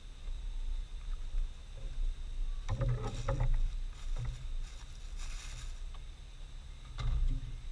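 A steady low rumble with scattered clicks and rustles of small objects being handled: a cluster of clicks about three seconds in, a hissing rustle a little after five seconds, and a sharp click near the end.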